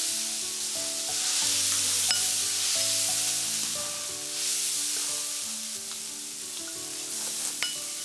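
Spicy lamb hot pot broth boiling hard in a large wok, a steady sizzling hiss that eases off a little past the middle, with a couple of faint clicks, over background music.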